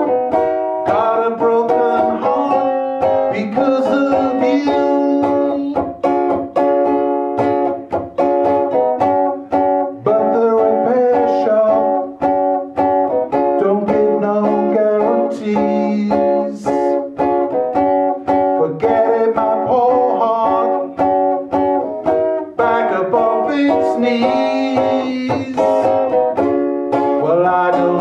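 Instrumental break on a plucked string instrument, a steady run of quickly picked notes.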